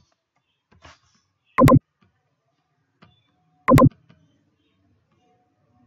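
Two loud, sharp clicks about two seconds apart, with a few faint ticks between them.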